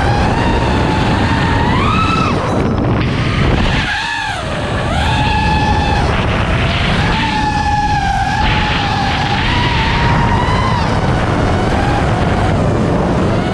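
FPV racing quadcopter's brushless motors whining, the pitch sweeping up and down with the throttle, dipping briefly about four seconds in. A heavy low rumble of wind runs underneath.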